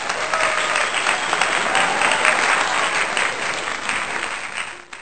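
Applause sound effect: a crowd clapping steadily, fading near the end and then cutting off.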